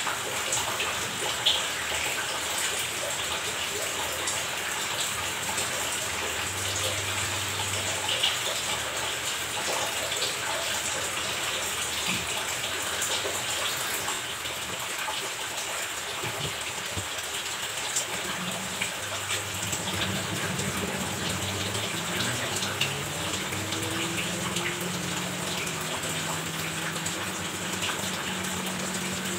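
Tap water running steadily, a continuous gushing splash. A low hum joins in about two-thirds of the way through.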